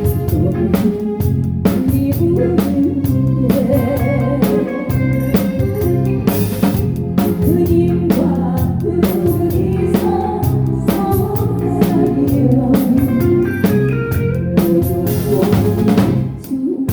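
Live band playing a song, the drum kit prominent with snare hits, rimshots and bass drum over the pitched instruments. Shortly before the end the music drops out for a moment and then comes back in.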